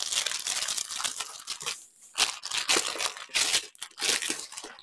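Clear plastic sleeve on a rolled diamond-painting canvas crinkling and tearing as it is pulled open. The rustles come in an irregular run, with a short lull about two seconds in.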